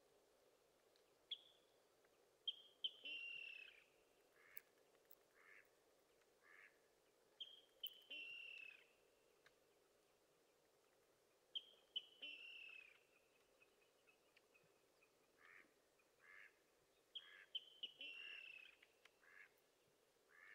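Water rail calling in four bouts. Each bout is a few sharp high notes running into a squeal that falls in pitch, followed by several separate short notes spaced about a second apart.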